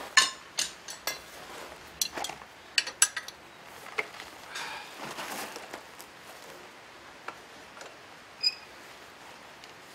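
Steel tools and a steel blade clinking and knocking against an iron vise while the blade is handled in its jaws with tongs: a run of sharp separate clinks over the first few seconds, a longer rough noise around the middle, and a single short ringing ping near the end.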